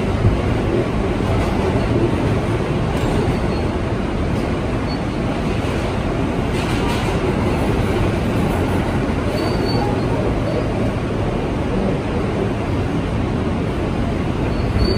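New York City subway car running on its line, heard from inside the car: a steady, loud rumble of wheels and running gear, with a brief higher hiss about seven seconds in.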